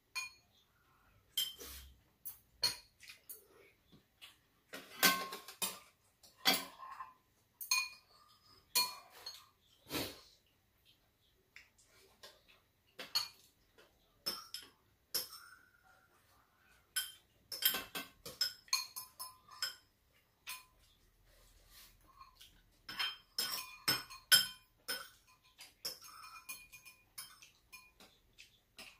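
Metal spoons and chopsticks clinking against ceramic bowls as two people eat, in scattered, irregular clicks, some with a short ring.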